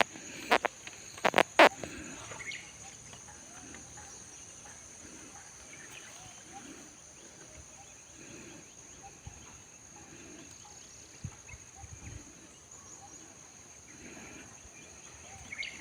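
Outdoor farm ambience: a steady high-pitched buzz under faint scattered sounds, with several sharp knocks in the first two seconds.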